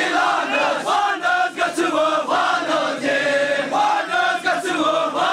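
A crowd of men chanting together, many voices at once, in a devotional group recitation.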